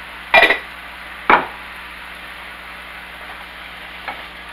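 Shaved chicken and beef frying in a skillet with a steady sizzle, broken by two sharp knocks about a second apart near the start and a lighter knock near the end: kitchen utensils striking the pan as the meat is stirred with a wooden spatula.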